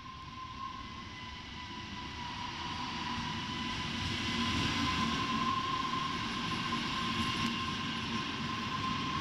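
Passenger train pulling into the station and rolling past close by along the platform, its rumble growing louder as it nears, with a steady high whine throughout.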